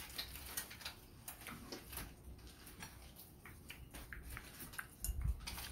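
Faint, irregular crunching and clicking of eating crispy deep-fried pig's head (crispy ulo): torn apart by hand and chewed. A soft low thump comes near the end.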